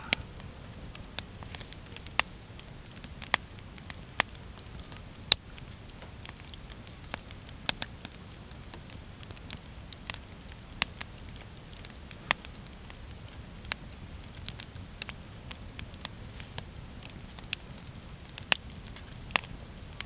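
Wood bonfire burning, crackling with sharp, irregular pops over a steady low noise; the loudest pop comes about five seconds in.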